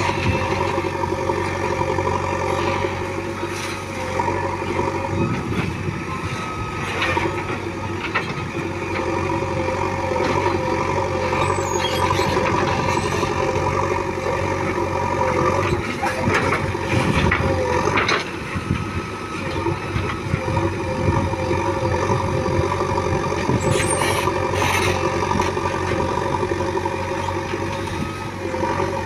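Diesel engines of a JCB 3DX backhoe loader and farm tractors running steadily, with a wavering engine drone. Scattered knocks and clatters come through every few seconds.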